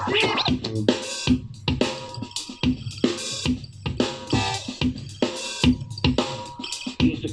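Drum-driven music with kick, snare and hi-hat on a steady beat, played through a Huawei Mini Speaker (CM510) Bluetooth speaker and picked up by a microphone.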